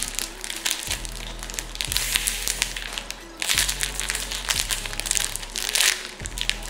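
Clear plastic packaging bag crinkling as the squishy foam rainbow-cake toy inside it is squeezed, in two long stretches, over background music.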